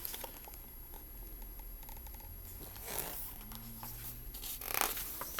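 Quiet room tone with a paper page of a storybook being turned: a soft rustle about three seconds in and a sharper swish near the end.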